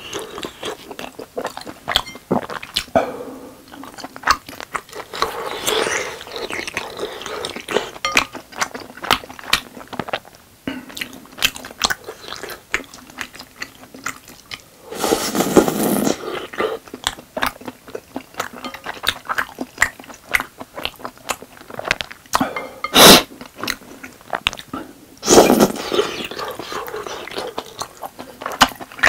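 Close-miked chewing of tteokbokki, soft, chewy rice cakes in thick sauce: wet mouth sounds and many small clicks, with a spoon now and then clicking against the glass bowl. Three louder moments stand out, the longest lasting about a second and a half around midway, then two short ones near the end.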